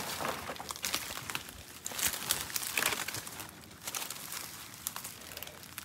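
Footsteps pushing through dry leaf litter and dry palmetto fronds: irregular crackling and crunching of dead leaves and fronds, coming in uneven clusters.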